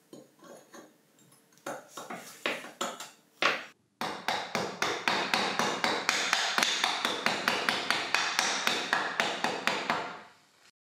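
Workshop hand-tool work: a few scattered knocks and clicks, then, after a sudden break about four seconds in, a long run of quick, evenly spaced strokes, about five a second, that fades out near the end.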